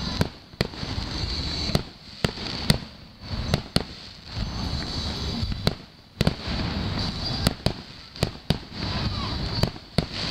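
Fireworks display going off: a string of sharp bangs and cracks at irregular intervals, sometimes two or three close together, over a low rumbling of booms.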